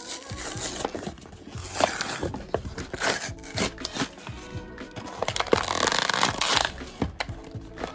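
Background music with handling noises over it: clicks, scrapes and rustles, as of plastic and cardboard packaging being opened.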